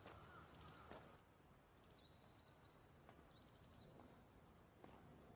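Very quiet outdoor ambience with a few faint, short bird chirps a couple of seconds in.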